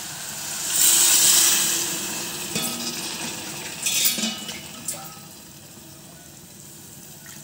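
Water poured into a pressure cooker of hot fried vegetables and masala, hissing and sizzling loudly for about two seconds. A steel ladle then clinks against the pot a few times as it is stirred, and the sound settles to a faint simmer.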